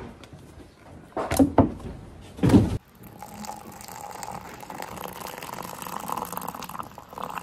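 Three loud knocks or clunks, then, after an abrupt change about three seconds in, a steady watery rushing sound, like liquid being poured or filling a vessel.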